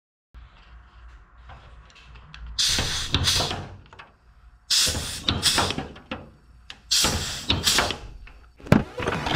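Three bursts of hissing, about a second each, from a hand-held pneumatic tool on a shop air line, worked on the aluminum elevator, with a sharp click near the end. Quieter handling noise comes before the first burst.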